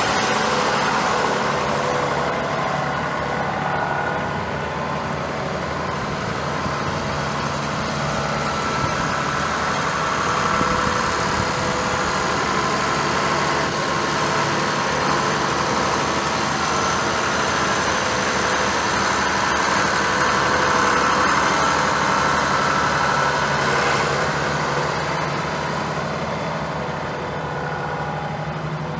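John Deere 6615 tractor's 6.8-litre six-cylinder turbo diesel running steadily as the tractor drives by at low speed. The engine sound gets a little quieter over the last few seconds as the tractor moves away.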